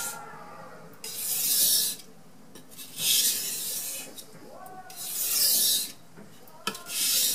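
Knife blade drawn across a wet 4000-grit Carborundum whetstone in single passes, giving a scraping hiss about once every two seconds, four strokes in all. These are light finishing passes, one per side at a time, to refine the edge of a cheap, very soft-steel knife.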